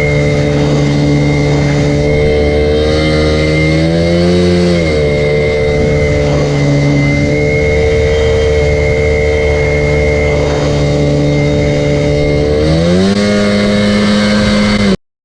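Jet ski engine running under way, its pitch rising briefly about four seconds in and falling back, then rising again near the end and holding, with a steady high whine over it. The sound cuts off abruptly just before the end.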